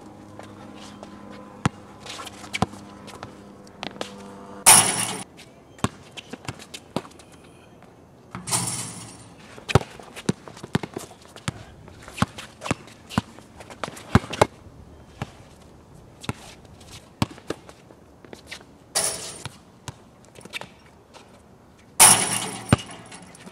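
A basketball being dribbled on a hard outdoor court: a long run of sharp single bounces, broken by four louder crashing hits, about five, eight and a half, nineteen and twenty-two seconds in, each dying away over about a second.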